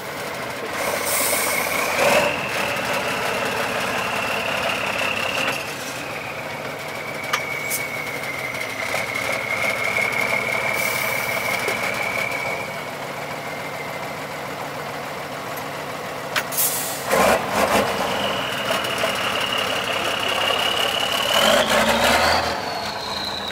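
Diesel engine of a 6x6 truck-trial truck working under load as it crawls out of a mud pit, with a high steady whistle over the engine note. Near the end the driver gives it heavy throttle and it revs up, the whistle climbing in pitch. A few short knocks come past the middle.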